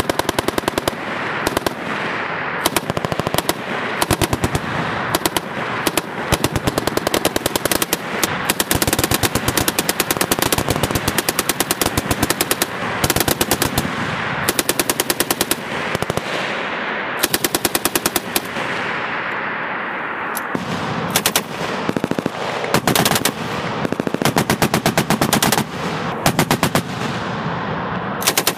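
Several belt-fed M240-type machine guns firing rapid bursts on a firing line, the bursts from different guns overlapping almost without a break.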